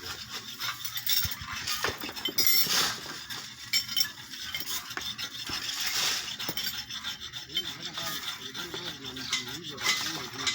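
Metal tools and engine parts clinking, scraping and knocking irregularly during hand work on a truck engine.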